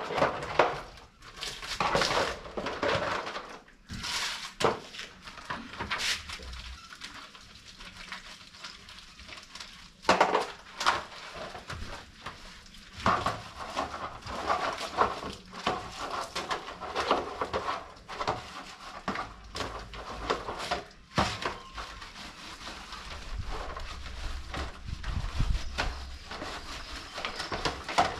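Pots and utensils being washed by hand: irregular clatter and knocks of dishware, with scrubbing noise between.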